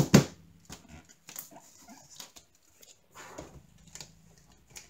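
Two sharp knocks as a plastic magnetic picture frame is handled and set down on a cutting mat, followed by faint taps and soft rustling as hands press a diamond painting flat inside it.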